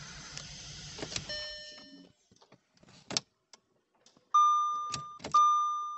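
Audi B8 S5 engine running, with a big air leak after a carbon cleaning, then stopping about a second and a half in as a short chime sounds. A few sharp clicks follow, then two loud, sustained warning chimes from the car's dashboard.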